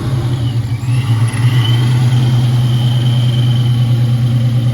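Supercharged 2001 Ford Mustang Bullitt's 4.6-litre V8 idling steadily on a cold start through its Flowmaster exhaust, with the supercharger's high whine coming in over it about a second and a half in.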